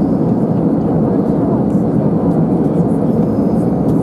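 Steady cabin noise of an airplane in flight: an even, unbroken rush of engines and air over the fuselage.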